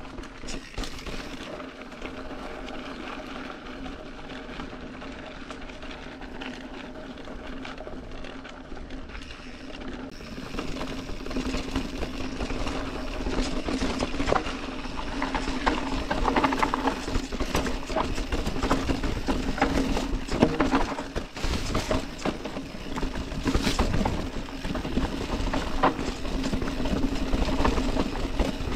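Orbea Occam full-suspension mountain bike descending a dirt trail: tyres rolling over dirt and roots, with chain and frame rattling and a steady hum. From about ten seconds in it gets louder and rougher, with many quick knocks and rattles.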